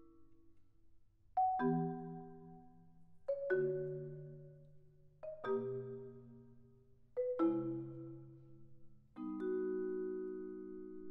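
Vibraphone and marimba duet playing slow chords. After a short pause, a chord is struck about every two seconds, each with a quick stroke just before the main one, and left to ring and fade.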